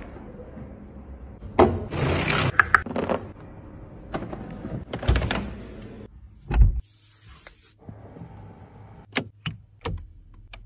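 Handling sounds inside a Mercedes-Maybach S580: rustling and clatter, a short deep thump about six and a half seconds in, then a low steady hum with a quick run of sharp clicks near the end.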